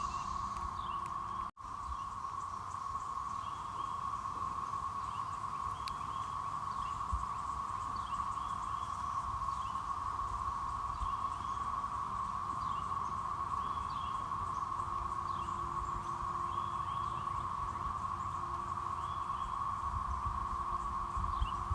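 Chorus of periodical cicadas: a steady, unbroken drone of massed mating calls. It cuts out for an instant about a second and a half in.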